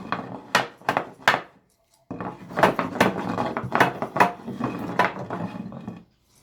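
Wooden pieces knocking and clattering as they are handled: a run of sharp knocks, a brief pause about two seconds in, then a denser stretch of clattering.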